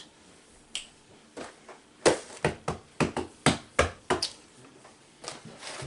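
A quick run of about eight sharp knocks on a hard surface, starting about two seconds in and lasting a little over two seconds.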